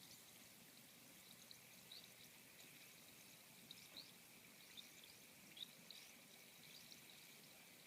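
Very faint fizzing of Coca-Cola in a can, tiny bubbles popping irregularly as a rusty microphone grill soaks in it.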